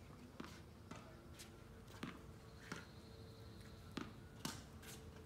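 Tennis ball rally on a hard court: a run of faint, sharp pocks, alternating racket hits and ball bounces, about seven in all.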